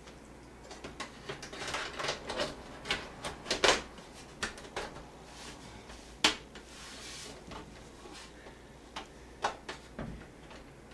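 Top cover of a small computer case being fitted back on: a run of light clicks, taps and knocks as the panel is handled and seated, with a sharper knock about six seconds in and a few more clicks near the end.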